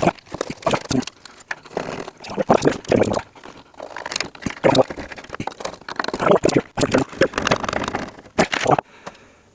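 Irregular clicks, knocks and scrapes of metal being handled and worked with a hand tool, as screws are fitted to hold the burner pan in the upturned gas fire pit.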